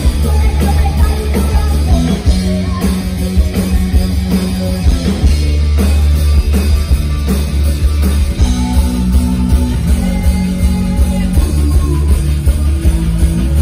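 Live rock band playing loud: electric guitar, bass guitar and a full drum kit.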